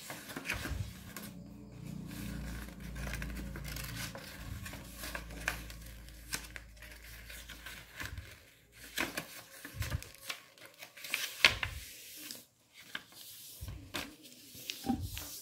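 A sheet of craft paper rustling and sliding on a tiled floor as hands fold it and press the creases flat, in short irregular rustles and scrapes. A low steady hum sits under the first half.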